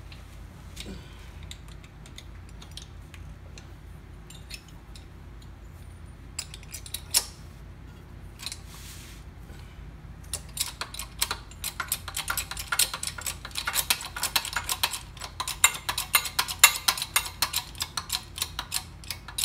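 Hydraulic bottle jack being pumped with its steel handle to lift a heavy safe door. A few scattered clicks and handling knocks come first, then about ten seconds in a fast, continuous run of metallic clicks and rattles from the pumping.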